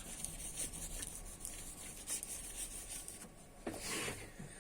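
Faint rubbing and light handling noises from wiping a laptop's internal parts with a paper tissue, with a few soft clicks.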